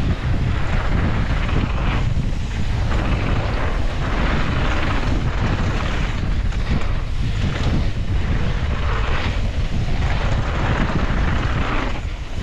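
Wind buffeting the microphone and the low rumble and rattle of a mountain bike descending a dirt trail at speed, the noise swelling and easing every second or two.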